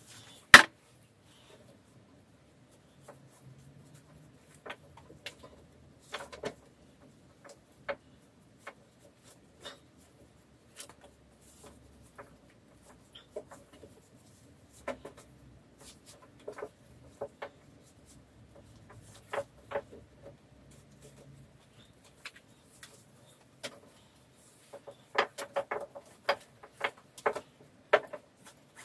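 Scattered clicks, knocks and clinks of hand work around a vintage car engine sitting on its mounts, as fabric lifting straps and metal parts are handled. There is one sharp knock about half a second in, and a quick run of clinks near the end.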